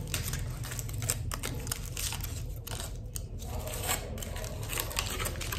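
Chocolate's foil packaging being opened by hand: a run of light crinkles and clicks over a low steady hum.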